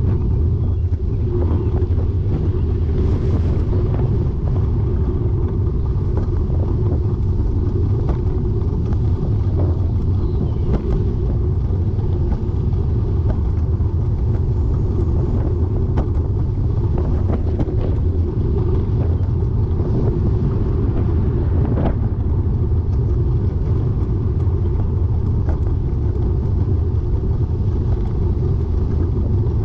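Steady low rumble of a bike riding along the road, with a few faint clicks.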